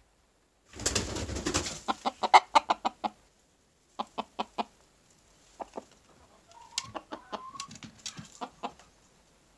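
A brief burst of rustling in the nest straw, then a chicken clucking in quick runs of short, sharp clucks, with a short drawn-out call near the middle.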